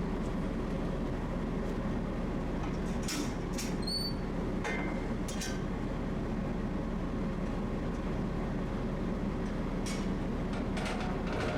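Steady low engine drone of a small harbour ferry, with a few faint clicks and a brief high squeak about four seconds in.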